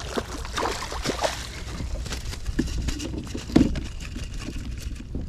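Water sloshing against the hull of a small boat, over a steady low rumble, with scattered knocks and clicks.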